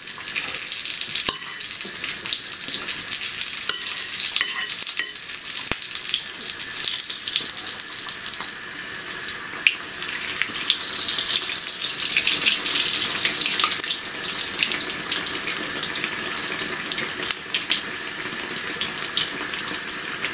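Battered aubergine pakoras deep-frying in hot oil in a karahi: a steady crackling sizzle, with a few sharp clicks of a metal utensil as the pakoras are turned.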